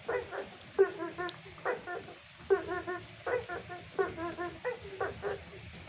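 Frog croaking over and over: short calls of a few quick notes each, repeated about every half second to a second.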